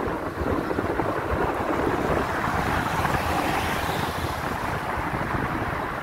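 Tyre and wind noise from a car driving along: a steady hiss over a low rumble that swells for a few seconds in the middle.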